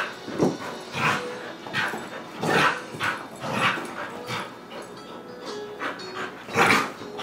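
Dog barking in short, single barks during play, about ten of them at uneven intervals, the loudest near the end.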